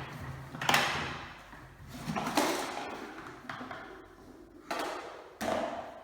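Hard plastic parts of a wet/dry vacuum cleaner being handled and fitted together, giving several separate knocks and clunks a second or two apart. Each rings on in the echo of a bare, empty room.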